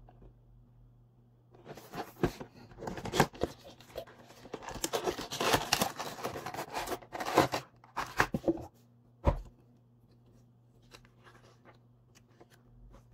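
Cardboard box and its clear plastic packaging being handled and pulled open: several seconds of crinkling, rustling and tearing, then a single thump about nine seconds in.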